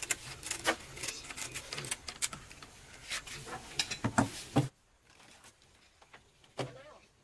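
Scissors snipping through a sheet of sandpaper, a quick run of clicks and scratchy cuts with handling rustle. The sound stops abruptly about two-thirds through, leaving faint background with a single knock near the end.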